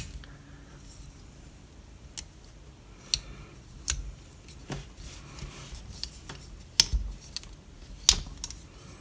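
Small folding multi-tool handled and its serrated knife blade sawing at cord: faint scratchy rasping broken by scattered sharp clicks and snaps.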